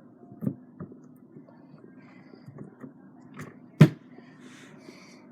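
Slime being squeezed and stretched by hand: a few soft sticky clicks, then one sharp pop about four seconds in.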